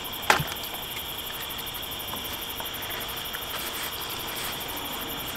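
Steady high chirring of night insects, with one sharp knock just after the start and a few faint light clicks.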